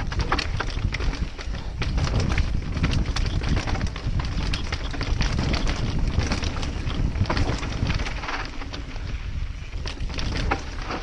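Mountain bike riding fast down a rocky dirt trail: a steady rumble of wind buffeting the helmet-mounted camera's microphone, with frequent sharp clatters and knocks as the bike rattles over rocks and rough ground.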